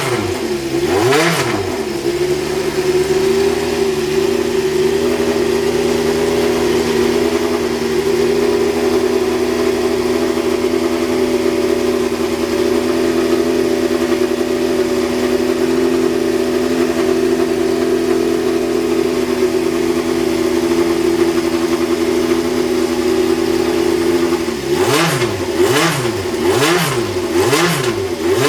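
Maki F101A Formula One car's Cosworth DFV V8 engine, blipped sharply a couple of times, then held at a steady engine speed for about twenty seconds, then revved again in quick repeated blips near the end.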